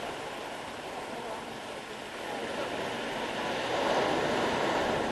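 Sea waves breaking on a pebble beach: a steady wash of surf that swells louder as a wave crashes about four seconds in.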